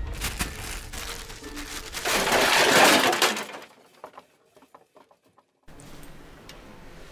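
A loud crash of breaking glass about two seconds in, lasting about a second, followed by a few faint clinks.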